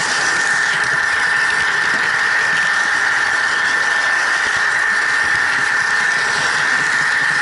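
Model train running along the layout track: a steady high whine from the model locomotive's motor and gearing over the continuous rolling noise of the wheels on the rails.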